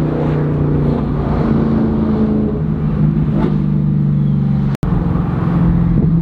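Straight-piped BMW M3 V8 with its mufflers cut off, heard from inside the cabin while driving: a loud, steady exhaust drone. The sound cuts out for an instant about three-quarters of the way through.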